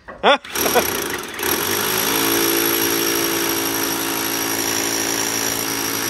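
Corded SDS rotary hammer drill starting up about half a second in and running steadily, its hammer action chattering as it drills into a concrete wall panel; a brief shout comes just before it starts.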